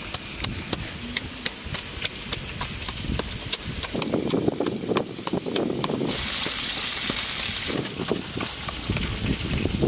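Wooden pestle pounding chilies, garlic and salt in a coconut-shell bowl: steady knocks, about two to three a second, turning into wetter mashing and grinding partway through. A steady hiss joins for about two seconds after the middle.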